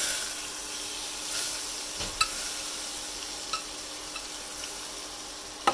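Margarine melting and sizzling in a stainless steel saucepan, with a metal spoon stirring it and clicking against the pan a few times, loudest near the end.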